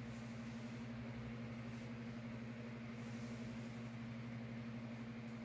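A steady low hum, even and unchanging.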